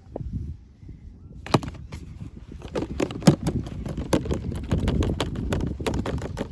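Hands handling doll packaging: dull knocks and rustling, then from about a second and a half in a dense run of sharp clicks and crackles, like plastic and cardboard being worked open.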